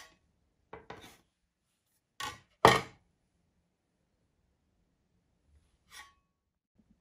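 Stainless-steel bench scraper knocking and scraping on a kitchen countertop as it is handled and set down: a few short clatters, the loudest a little before the middle, and a last knock with a brief metallic ring near the end.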